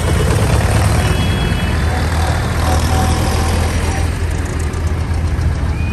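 Vintage tractor engines running at low speed as the tractors drive slowly past, a steady low rumble.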